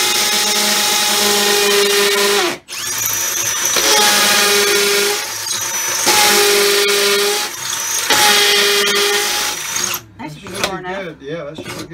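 Cordless hammer drill boring into the wall, run in long bursts with a steady whine over a grinding noise. It pauses briefly a couple of seconds in and stops about ten seconds in.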